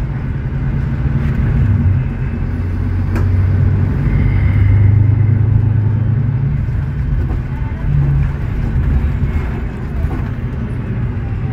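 Mercedes-Benz O500U city bus's OM936LA Bluetec 6 inline-six diesel, heard from inside the bus while it drives along: a steady low engine drone with road noise, a little louder from about four to six and a half seconds in, then easing off.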